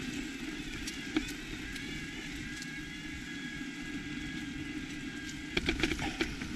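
Electric mountain bike riding uphill: a steady drive-motor whine over tyre rolling noise on tarmac. From about five and a half seconds in, a quick run of knocks and rattles as the tyres roll onto a stony dirt track.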